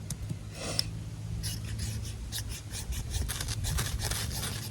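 A steel knife scraped repeatedly down a ferro rod, a quick run of short, sharp rasping strokes, several a second, that begins about a second and a half in and throws sparks: the CPM 1V blade strikes the rod.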